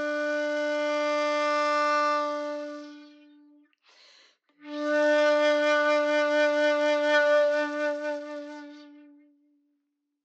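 Bamboo shakuhachi playing two long held notes on the same pitch, with a short breath between them about four seconds in. The first note swells and then fades; the second wavers in a slow vibrato before dying away.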